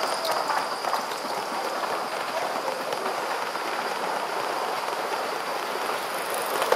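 Live-steam model locomotive and its train of open goods wagons running past close by: a steady, rapid clatter of small wheels on the rails under a hiss like rain.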